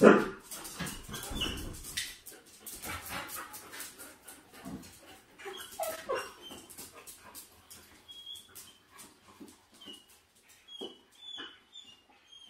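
Two excited Pungsan dogs whining, with many short clicks and scuffs of paws on a hard floor as they jump about. It is loudest at the very start, and short high-pitched whines come more often in the second half.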